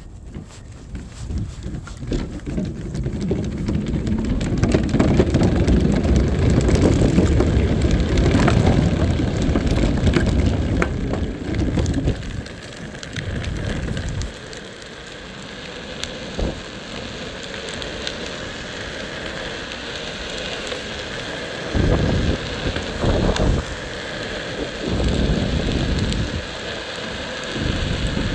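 Skateboard rolling on soft 3D-printed TPU wheels, a low rumble mixed with wind buffeting the microphone. It builds over the first few seconds, eases off about halfway through, and a few sharp gusts of wind come near the end.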